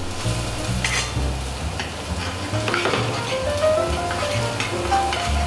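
Venison fillet sizzling as it sears in a frying pan, with a utensil stirring and clinking in a second pan of sauce. Background music with a bass line plays under it.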